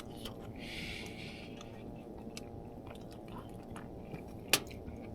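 A person chewing a hot, soupy meat dumpling, with small wet mouth clicks. There is a short hiss about a second in and one sharp click near the end.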